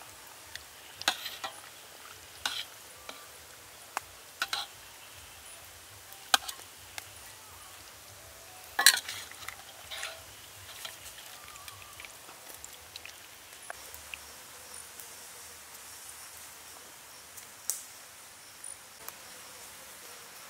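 Scattered sharp clicks and light knocks from a steel plate of chicken legs being handled, the loudest about nine seconds in.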